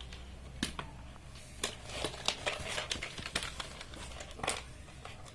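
A new keyboard and its packaging being handled: an irregular run of crinkles and sharp clicks, over a steady low hum.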